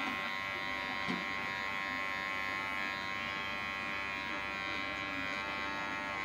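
Cordless electric hair clipper running with a steady buzz as it trims short hair on the side of a head.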